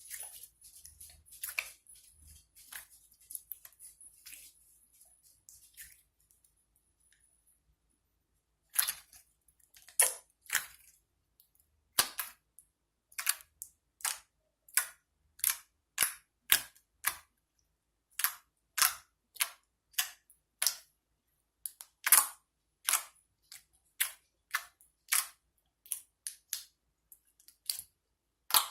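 Homemade slime being poked and squeezed: a few seconds of faint crackling, then a long series of sharp pops from trapped air, about one to two a second.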